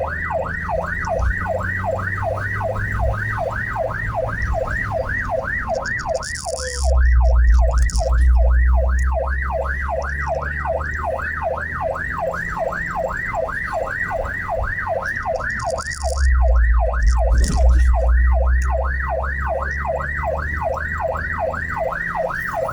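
Ambulance siren on a fast yelp, sweeping up and down about three times a second without a break, over the vehicle's engine and road rumble, which swells twice. Heard from on board the ambulance.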